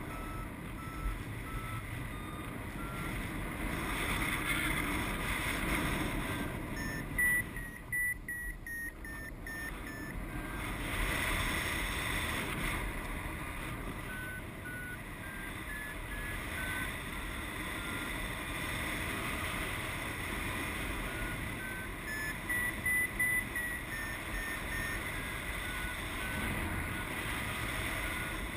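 Paragliding variometer beeping steadily in short tones, their pitch stepping up and down with the climb rate, highest twice, about a quarter of the way in and again near three-quarters: the glider is climbing in lift. Wind rushes on the microphone underneath.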